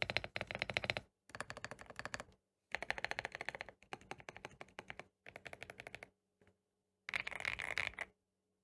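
Fast typing on a GMK67 mechanical keyboard: rapid key clacks in bursts of about a second, with short pauses between them and a longer pause before the last burst.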